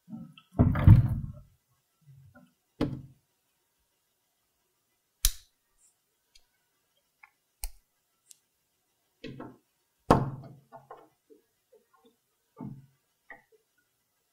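A wooden cupboard door being handled and its knob worked: a heavy low thud about a second in, sharp clicks a few seconds later, then a cluster of knocks and rattles.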